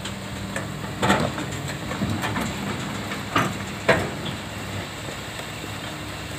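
Old Hitachi crawler excavator's diesel engine running steadily as it climbs its steel tracks onto a lowboy trailer, with sharp metallic clanks about a second in and twice near four seconds as steel strikes the trailer.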